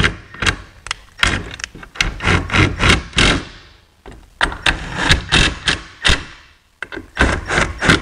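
Red cordless power tool driving the three 10 mm bolts that hold the oil baffle to an aluminium oil pan, running in several short bursts with brief pauses between them.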